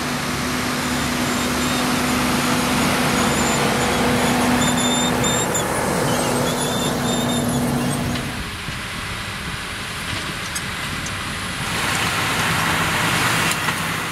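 Fendt 716 tractor's engine running steadily under load while pulling a seed drill, with a held hum. About eight seconds in it cuts to another tractor working a drill, a Massey Ferguson 7616, quieter at first and louder again near the end.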